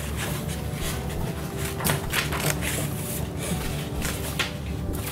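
Scissors snipping construction paper, irregular short snips with paper rustling over a steady low room hum.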